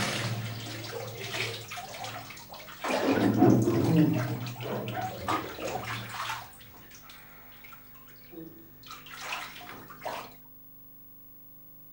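Bathwater splashing and sloshing as a person moves in a filled bathtub, loudest about three seconds in. It dies away about ten seconds in.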